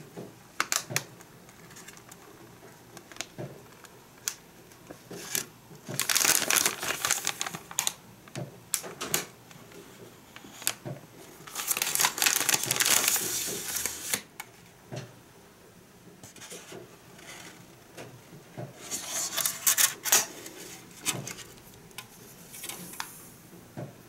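Crinkly plastic candy-kit bag being handled and opened, in three long crackling bursts, with scattered light clicks and taps as plastic parts are set on the table.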